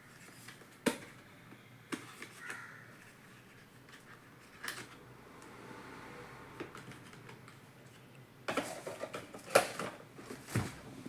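Scattered clicks and taps from handling a smartphone and its packaging, a few single clicks at first, then a quick run of taps near the end.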